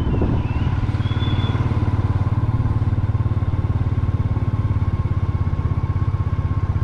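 Motor scooter engine running steadily while riding along at a constant speed, with an even low pulsing throb. A short high chirp sounds about a second in.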